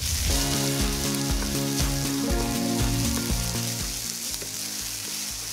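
Sliced shallots, curry leaves and ginger-garlic paste sizzling in hot oil in a kadai, stirred with a wooden spatula that scrapes and knocks against the pan. A steady pitched hum of several notes sits under the sizzle for the first three seconds or so.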